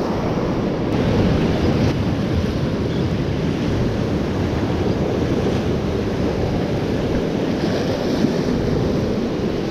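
Surf breaking against the rock blocks of a jetty, mixed with wind buffeting the microphone: a steady, noisy rush.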